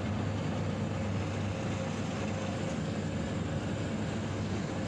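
Engine and cutter of a self-propelled grass-cutting machine running steadily while it mows, heard from inside the cab: an even drone with a faint steady whine.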